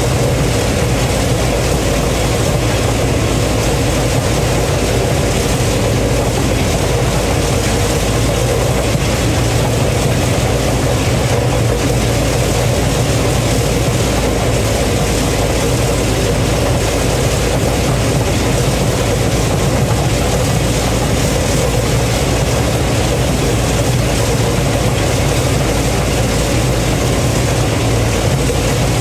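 Heavy diesel farm machinery running steadily at a constant speed: a continuous low engine drone with a wash of mechanical noise over it, most likely the combine at work harvesting corn.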